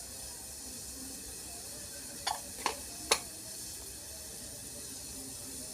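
Pot of water at the boil giving a steady low hiss, with three short sharp knocks against the pot about half a second apart a little over two seconds in, the last the loudest.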